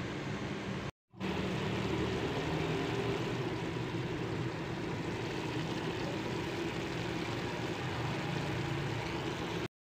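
Minced meat sizzling as it fries in ghee in a pot, a steady hiss that cuts out briefly about a second in and again near the end.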